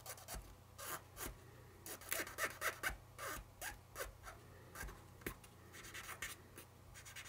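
Cotton swab rubbing powdered graphite pigment onto a small model steel coil: faint, irregular scratchy strokes, a dozen or so spread through, over a low steady hum.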